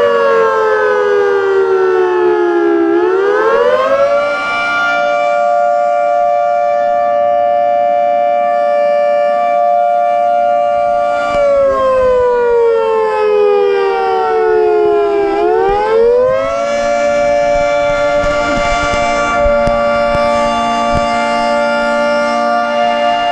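Federal Sign & Signal 3T22 three-tone outdoor warning siren sounding the attack signal on a test: a loud chord of several notes that sags in pitch for a few seconds, climbs quickly back, and holds steady for about seven seconds, twice over.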